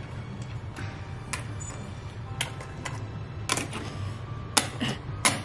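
Coins clicking against each other and the wooden tabletop as they are picked up and stacked one-handed: a handful of sharp, separate clicks at uneven intervals.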